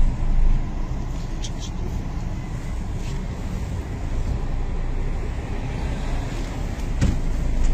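Street traffic noise: cars running past in a steady low rumble, with a few brief clicks.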